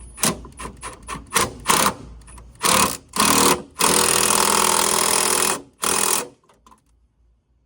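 Cordless drill fitted with an Allen (hex) socket, driving a strut bar fastener down. A few light clicks and knocks of the tool are followed by two short whirs, then a steady run of nearly two seconds and one last brief burst.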